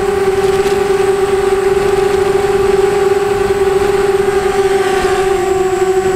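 A 250-size quadcopter's brushless motors and 5045 bull-nose propellers whining steadily in flight, heard close from a camera mounted on the quad. The pitch dips slightly near the end.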